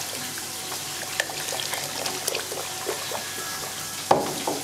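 Creamy yogurt and egg-yolk liaison poured from a bowl into a pot of hot soup while a ladle stirs it, a steady liquid pour with small scattered ticks. A brief louder sound about four seconds in.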